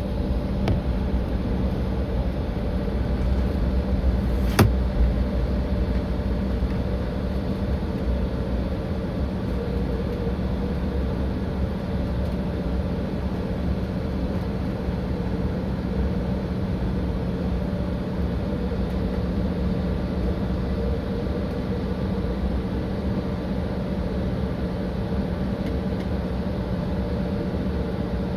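Steady engine and airflow drone inside an airliner cabin, with a low rumble and a constant hum. A single sharp click about four and a half seconds in.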